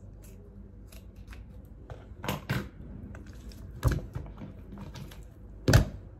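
A skinned raw whole chicken handled and turned over on a wooden cutting board: scattered small clicks and several sharp knocks and wet slaps, the loudest near the end.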